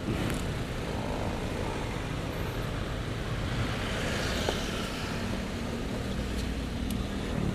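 Steady road traffic noise on a city street: a constant rumble of passing cars and motorbikes.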